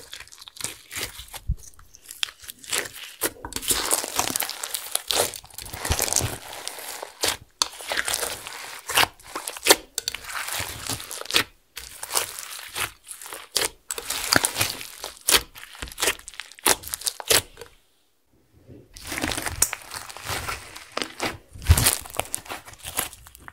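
Hands squeezing and kneading clear slime loaded with foam beads and glitter, giving a dense, irregular run of crunchy crackles and sharp little pops. It breaks off for about a second near the end, then picks up again.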